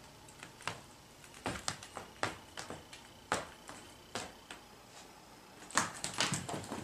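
Footsteps of a dog wearing sneakers on a wooden floor: light, irregular taps and clicks, bunched more closely near the end.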